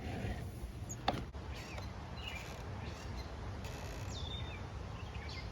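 Birds chirping now and then over steady low background noise, with a sharp click about a second in.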